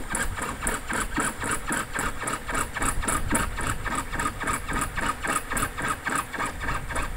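Jeweller's piercing saw with a fine blade cutting a brass blank by hand, a rasping stroke about four times a second in a steady rhythm.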